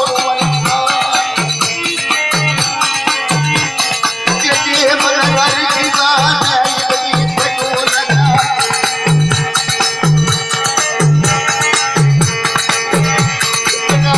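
Music with a regular low beat, busy shaker-like percussion and a wavering melodic line.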